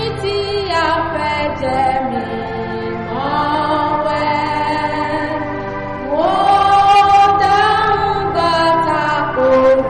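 Gospel singing over a sustained keyboard: voices hold long notes in phrases of about three seconds, each one sliding up into its note, with new phrases coming in about a second, three seconds and six seconds in.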